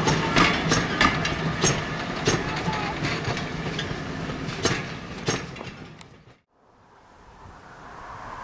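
Passenger coaches rolling past, their wheels clicking over rail joints at about two clicks a second over a steady rumble. The sound fades as the last coach moves away and cuts out about six seconds in, leaving a faint steady hiss.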